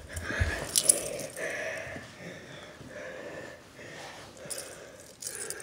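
Heavy breathing close to the microphone, a breath about every second, with a few sharp handling clicks and rustles near the start.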